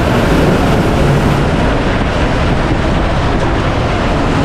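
Amphibious Duck tour vehicle running at speed, with a steady low engine hum under a loud rush of wind and water noise on the microphone.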